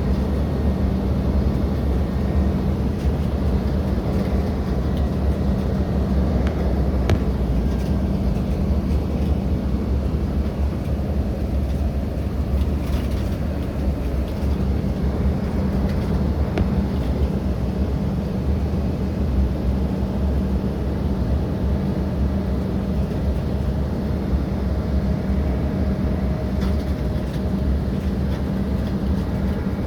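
Steady jet airliner cabin noise aboard an Embraer 175: a loud, unchanging rumble with a constant low hum.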